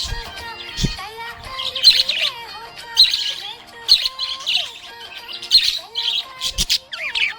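Budgerigar chirping, with sharp bright chirps about once a second, over background music.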